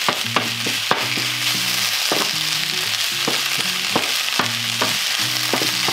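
Vegan mince, onions and bell peppers sizzling as they stir-fry in a frying pan, with a wooden spatula knocking and scraping against the pan about twice a second.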